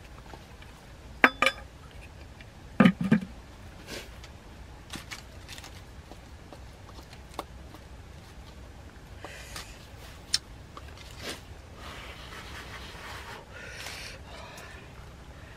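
Sharp knocks of hard objects on a clay cooking pot, two pairs in the first three seconds, the pot's lid going on. After that come lighter clicks and soft scraping of a spoon in a coconut-shell bowl of rice.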